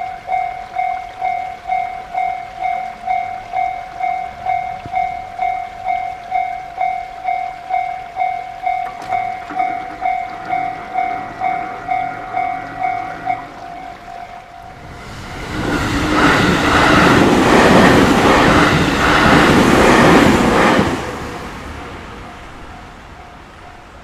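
Japanese level-crossing alarm ringing its electronic bell about twice a second, stopping about fourteen seconds in. A JR Tokaido Line train then passes loudly for about six seconds, its wheels clacking over the rail joints, and fades away.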